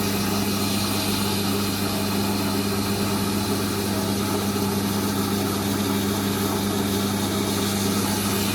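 Warco GH1330 geared-head lathe running slowly with a steady hum, while emery cloth is rubbed along a spinning drill chuck's taper shank, giving a continuous hissing rub over the motor. This polishes out high spots and imperfections rather than recutting the taper.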